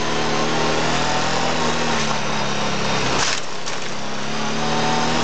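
Can-Am Renegade quad's engine running steadily under way on a rough track, with gravel and wind noise. There is a short rush of noise about three seconds in.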